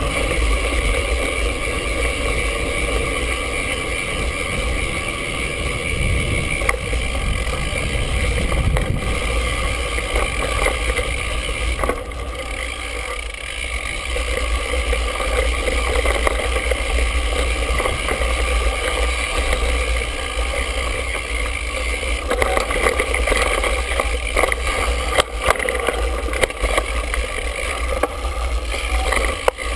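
Mountain bike rolling over a dirt trail, heard through a handlebar-mounted camera: a steady low rumble with occasional sharp knocks and rattles from bumps.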